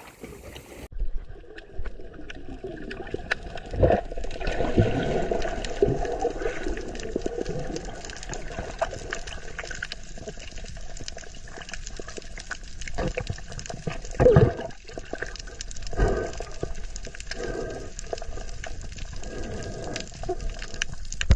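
Water sloshing and splashing, with a few sharp knocks.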